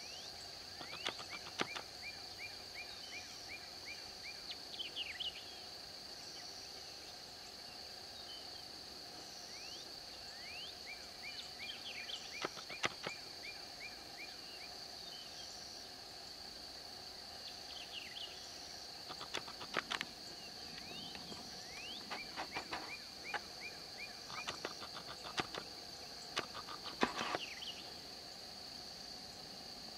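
Dusk wildlife chorus in a marshy meadow: insects drone steadily at a high pitch over a lower frog chorus, while birds call now and then with quick series of chirps and rising whistles.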